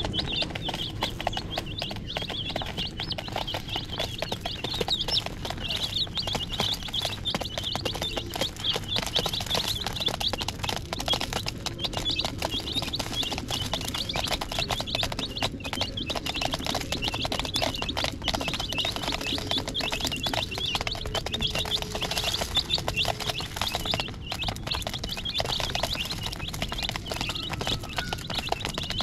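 A group of chicken chicks peeping continuously, many short high peeps overlapping, with frequent small taps of beaks pecking grain from a plastic dish.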